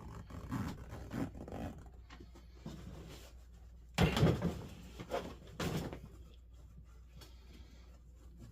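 Handling noises from work on a seat: irregular rustling and scraping, with two louder scrapes, one about four seconds in and one near six seconds.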